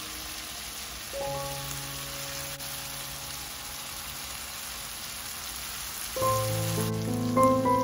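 Sliced onions and tomatoes sizzling in oil in a frying pan, a steady hiss, under soft background music that grows fuller about six seconds in.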